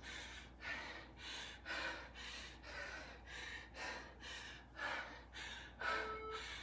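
A woman breathing hard and fast while doing air squats, about two breaths a second. Near the end a workout timer's electronic beep sounds once.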